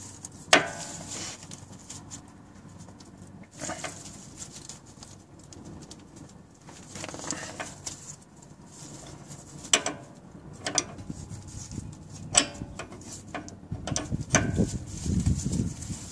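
A 14 mm open-end wrench clinking against the steel flare nut of a power steering line as it is fitted and pulled on: a handful of sharp metallic clicks a few seconds apart. The nut is too tight to break loose. A low rumbling sound comes near the end.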